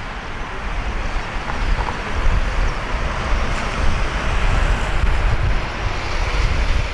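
Jet noise from a Boeing 787-9's Rolls-Royce Trent 1000 turbofans as the airliner approaches low on final for landing, rising over the first couple of seconds and then holding steady. Wind rumbles and buffets the microphone underneath.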